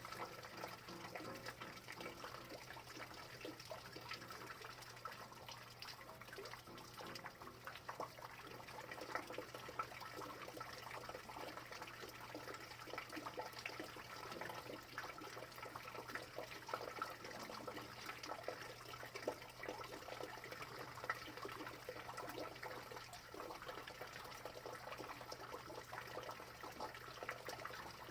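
Steady rain falling, a dense patter of drops with a few louder single drops, over a faint steady low hum.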